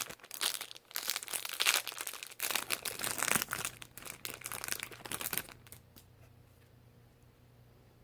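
Crinkly packaging being handled, with dense crinkling and rustling that stops about five and a half seconds in.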